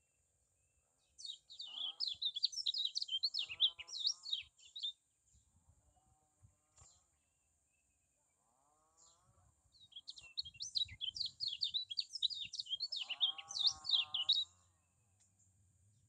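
Kecial kuning (white-eye) singing two bursts of fast, high twittering chatter, each about four seconds long, with a gap between them. A lower, wavering call sounds under each burst.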